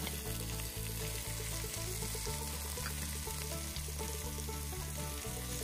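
Chopped tomatoes and onions sizzling in hot oil in a pan: a steady frying hiss. Under it runs background music with low sustained notes that change every half second or so.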